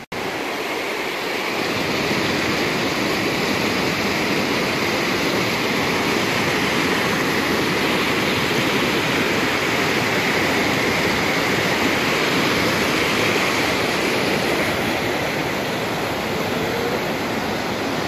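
A swollen beck in spate rushing over rocky rapids: a loud, steady sound of white water. It starts abruptly and builds over the first couple of seconds.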